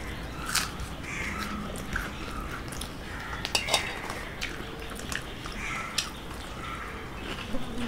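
Eating by hand: chewing, with scattered small clicks and taps as thin rumali roti is torn and handled over steel plates.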